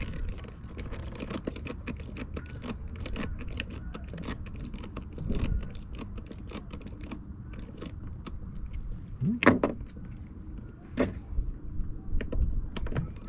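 Many small clicks and ticks of a self-tapping screw being hand-driven into fiberglass with a screwdriver, worked in a turn and backed out a turn so the screw doesn't snap. A brief vocal noise comes about nine and a half seconds in.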